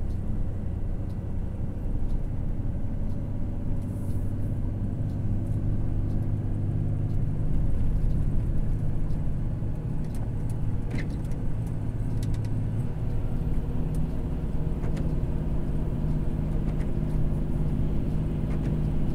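Volvo FH 460 truck's six-cylinder diesel and drivetrain heard from inside the cab as a steady low drone while the loaded truck coasts down a steep grade. The engine note steps up in pitch about two-thirds of the way through.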